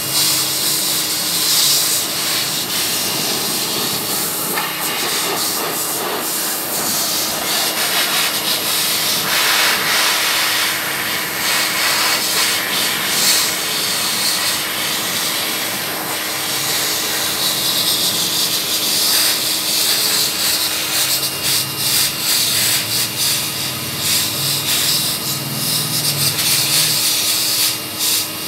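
Pet grooming blower dryer running, blowing air onto a cat's coat: a loud, steady rush of air with a constant motor hum under it.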